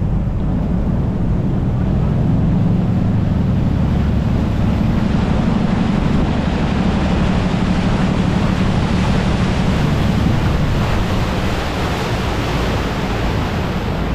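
Saen Saep canal express boat under way: its diesel engine running steadily, under a rush of water and wind that swells through the middle and eases near the end.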